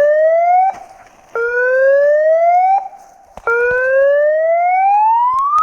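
A siren sounding a series of rising wails, each climbing in pitch and then cutting off abruptly. The last wail climbs higher and lasts longer than the others.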